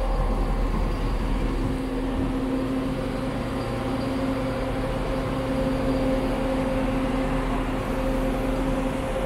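Diesel multiple unit standing at the platform with its engine running, a steady even hum with a low drone beneath.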